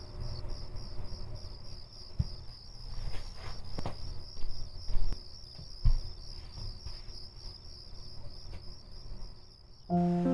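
Crickets chirping in a steady fast pulsing rhythm, with a few scattered knocks. Music comes in near the end.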